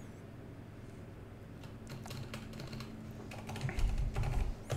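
Typing on a computer keyboard: scattered single keystrokes, coming faster and a little heavier in the last second or so.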